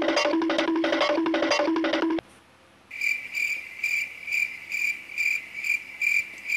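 Laptop call-app tones: a quick repeating two-note electronic jingle that stops about two seconds in, then after a short pause a series of about nine high, evenly spaced beeps, roughly two a second, the sound of a call being placed and ringing.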